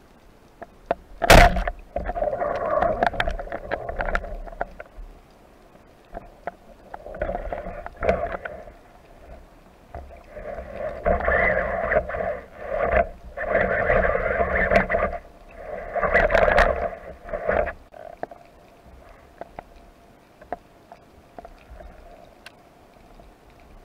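A speargun fires underwater, heard as a single sharp crack about a second in, aimed at a dolphinfish. Uneven bursts of underwater rushing noise follow over the next quarter-minute, with quiet gaps between them.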